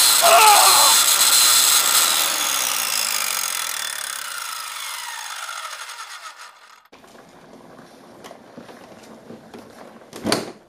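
Power tool whirring loudly, with a wavering pitched sound over it at the start, fading steadily and then cutting off abruptly about seven seconds in. One short, sharp hit near the end.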